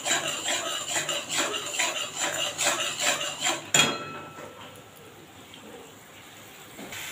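A steel spatula scrapes and stirs a thick spice paste around a steel wok, metal rasping on metal in quick repeated strokes. The masala is being fried down until the oil separates. The scraping stops about four seconds in, leaving only a faint hiss.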